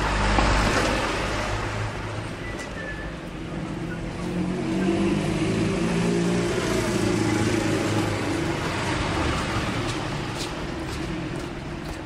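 Busy street traffic, with cars going by. A vehicle passes close just after the start, then an engine's low hum swells through the middle and fades.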